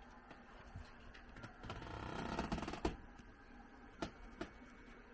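HO scale model train rolling along the track: a rapid light clatter of small wheels over rail joints swells about two seconds in, followed by a few sharp separate clicks.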